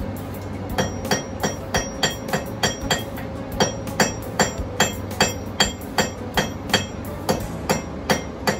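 Blacksmith's hand hammer striking metal on an anvil, about three ringing blows a second, starting about a second in.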